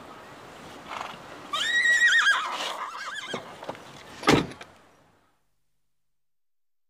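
A high animal call, held briefly and then wavering downward in pitch, followed about a second later by a single loud thump of a car door being shut.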